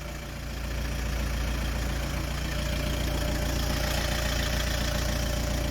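Volkswagen Caddy's engine idling steadily, a constant low hum with a faint steady tone above it.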